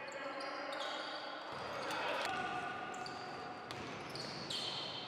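Live sound of an indoor basketball game: sneakers squeaking on the wooden court and a ball bouncing, with voices echoing in the hall.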